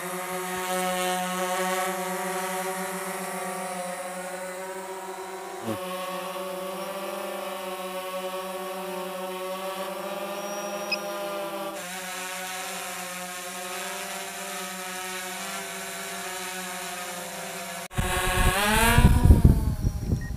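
DJI Phantom 4 Pro quadcopter hovering, its propellers giving a steady pitched hum that changes slightly at cuts every few seconds. For the last couple of seconds it is much louder, with a low rumble and a pitch that sweeps up and back down.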